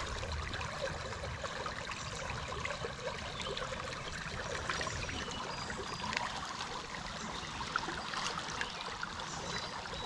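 Creek water running and trickling steadily.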